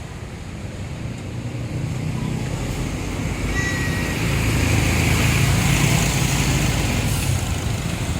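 Tour bus engine rumbling as the bus draws near and pulls past, growing louder over the first few seconds and then holding steady. A brief high squeak comes about three and a half seconds in. No telolet horn melody sounds.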